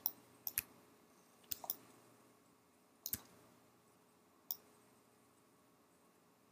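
Computer mouse buttons clicking: about nine short, sharp clicks, several in quick pairs, in the first four and a half seconds.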